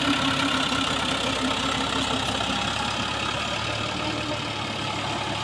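Massey Ferguson 260 tractor's three-cylinder diesel engine running steadily as the tractor drives off. A deeper engine note comes in about three and a half seconds in.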